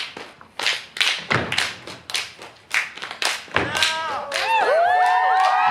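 Unaccompanied step routine: dancers' stomps and hand claps in a quick rhythm of sharp hits. From about four seconds in, audience whoops and cheers rise over the stepping.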